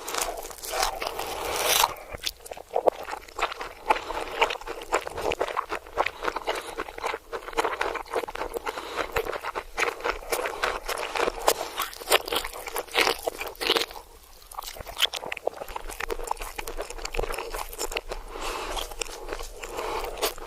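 Crunching and chewing of crisp food, played backwards: a run of irregular sharp crunches and crackles.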